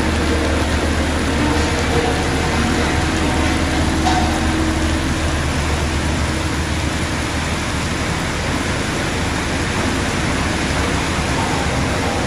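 Diesel engine of a single-drum road roller running as it drives past, a steady low hum that fades about two-thirds in, under the constant hiss of heavy rain.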